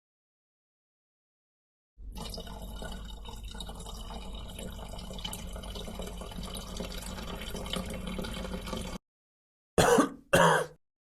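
A steady trickle of running water for about seven seconds, then two short throat-clearing coughs in quick succession.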